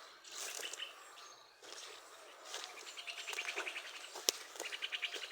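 An animal's rapid chirping trill, about ten high chirps a second, in two bursts, with a single sharp click about four seconds in.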